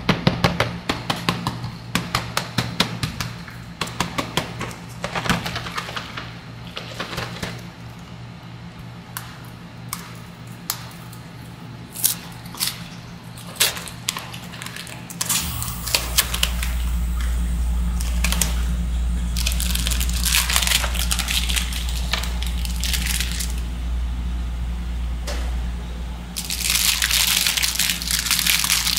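Metal spatulas chopping and tapping on the cold plate of a rolled ice cream maker, in quick runs of sharp clicks. About halfway through a steady low hum starts, and near the end come bursts of hissing scraping or liquid sounds.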